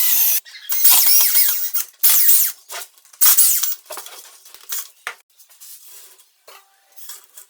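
Workshop handling noise: three long bursts of squeaky scraping or rubbing in the first few seconds, then lighter clicks, taps and short scrapes.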